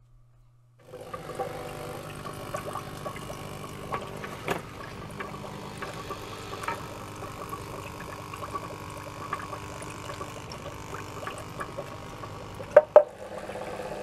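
Small air pump humming steadily while air bubbles through PCB etching solution in a tray, with fine crackling from the bubbles; it starts about a second in. A couple of sharp knocks near the end as the tray is handled.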